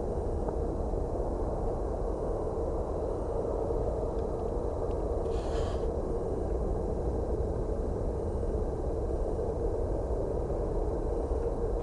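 Steady low rumble of jet aircraft engines, with a brief hiss about five seconds in.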